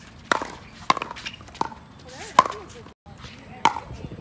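Pickleball paddles hitting a hard plastic pickleball in a fast rally: about five sharp pops, roughly two-thirds of a second apart, the loudest about two and a half seconds in.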